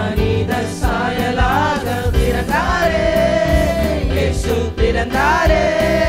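A male youth choir sings a Tamil Christmas carol into microphones, holding long notes in the second half, over electronic keyboard accompaniment with a steady beat.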